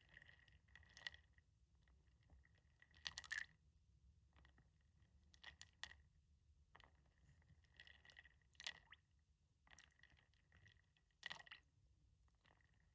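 Wooden beads tapping and clicking softly in short, irregular clusters every second or two, with light wet water sounds; the loudest clusters come about three seconds in and near the end.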